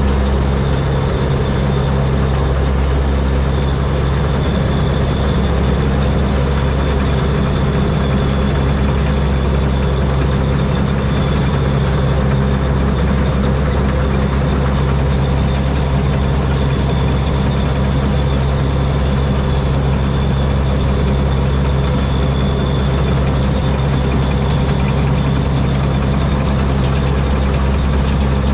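Rice combine harvester's turbocharged 225-horsepower Mitsubishi diesel engine running steadily at an even speed, with a faint high whine held throughout.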